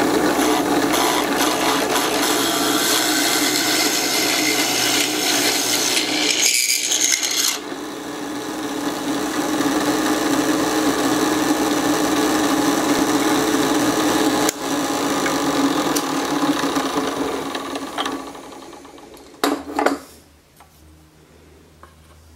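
Benchtop drill press running, its twist bit boring through a hardwood block into the end of a wooden frame leg, a steady grinding over the motor's hum. About eighteen seconds in the motor winds down, followed by a couple of sharp knocks.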